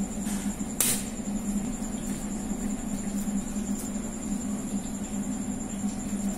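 A kitchen knife cutting rolled Malabar spinach dough on a steel tray, with one sharp tap of the blade on the metal about a second in. A steady low hum runs underneath.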